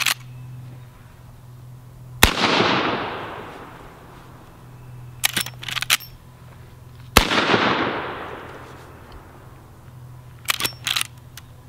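Two shots from a Marlin Model 1894 lever-action rifle in .44 Magnum, about five seconds apart, each a sharp crack followed by a long echoing tail. A few seconds after each shot comes a quick series of metallic clicks as the lever is worked to cycle the action.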